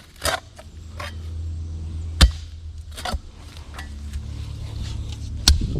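A digging tool chops into soil and roots in a fence post hole, in about five sharp, irregular strikes; the loudest comes a little past two seconds in. A steady low hum runs underneath.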